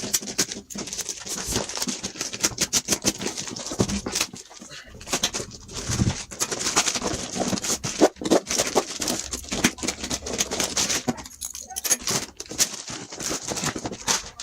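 Plastic shipping wrap being torn open and crinkled by hand: a dense, irregular run of crackles and rustles.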